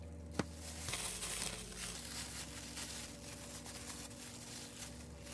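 Thin plastic crinkling and rustling from clear disposable plastic gloves and a plastic wrapper being handled. It starts after a single sharp click near the beginning and runs dense and continuous from about a second in.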